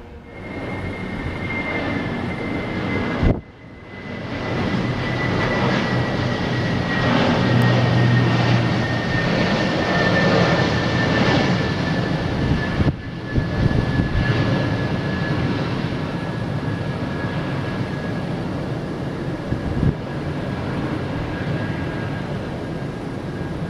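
Jet airliner on approach to land, its engines running with a steady rushing noise and a thin high whine that slowly falls in pitch. The sound dips briefly twice, about three and thirteen seconds in.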